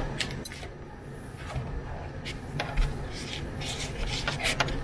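Plastic housing of an 18 V cordless-tool battery pack, built from 18650 cells, being handled and pried apart: scattered small clicks and short scrapes of plastic parts rubbing and knocking against each other.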